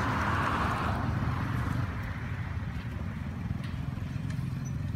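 Road traffic noise: a steady low rumble, with a vehicle passing by that is loudest in the first second and fades out by about two seconds in.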